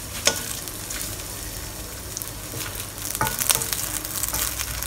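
Beaten egg sizzling in hot oil in a wok as it starts to set, a steady frying hiss. A few light knocks and scrapes of a wooden spatula against the pan, once near the start and twice past the middle.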